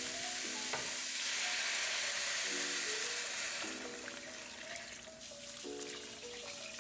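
Water being poured into a hot skillet of browned pork and onions, hissing and sizzling, the hiss dying down after about four seconds. Soft background music plays throughout.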